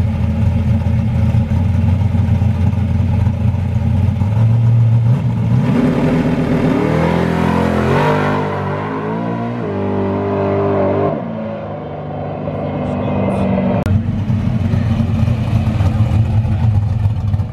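Modified Chevy S10 pickup's engine idling loudly and unevenly, then launching hard down the street, its pitch climbing in steps through the gears and fading as the truck pulls away. Near the end the loud uneven idle is heard again close up.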